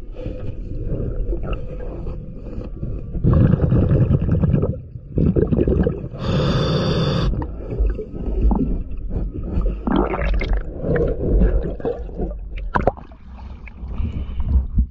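A diver's breathing heard underwater: gurgling rushes of exhaled bubbles alternating with a hissing inhalation through the regulator, repeating every few seconds. A few sharp knocks come in between.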